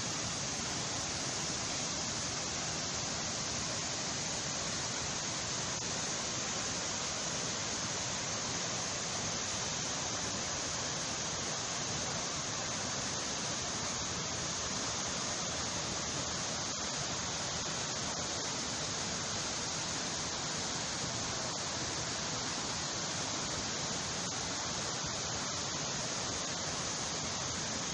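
Waterfall: falling water rushing in a steady, even hiss that does not change.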